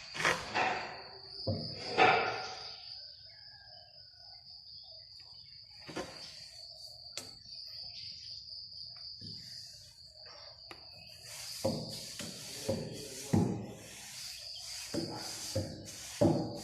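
Insects calling in one steady, high, continuous trill. Irregular knocks and scrapes stand out over it at the start and again in a cluster from about eleven seconds in.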